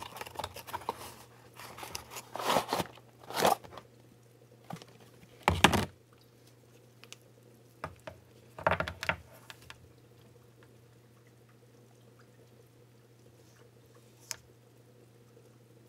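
Cardboard box of an aquarium heater being opened and the heater handled: bursts of rustling and crinkling through the first six seconds, then a couple more handling noises and a single click near the end.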